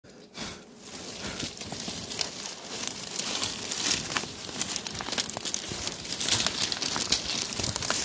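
Dry leaves, bamboo stems and twigs crackling and rustling as brush is pulled aside and cut with hand pruning shears, with many short sharp snaps and clicks throughout.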